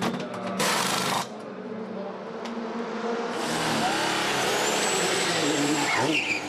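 Race pit noise: a few clicks and a short blast of air hiss about half a second in, then about three seconds of loud rushing vehicle noise with a whine that falls steeply in pitch, stopping shortly before the end.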